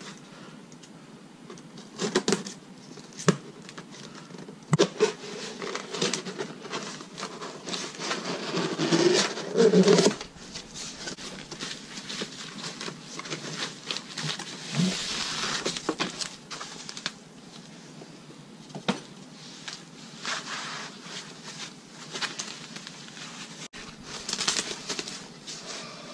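Plastic wrapping and a cardboard box being handled during unboxing: irregular crinkling and rustling with scattered sharp clicks and knocks. The rustling is loudest about nine to ten seconds in.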